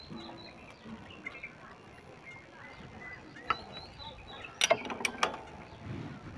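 Light metallic clicks and clinks of a spanner and a feeler gauge against the rocker arms and valve adjusting screws of a diesel tractor engine's open valve gear. A quick cluster of sharp clicks comes about five seconds in.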